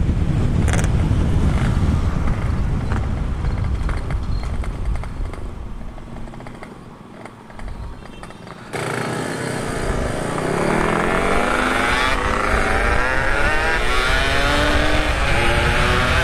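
Motorcycle being ridden at speed, with heavy wind noise on the microphone at first. The sound sinks for a couple of seconds in the middle. Then, about nine seconds in, it jumps back up, and the engine note climbs in pitch again and again as the bike accelerates.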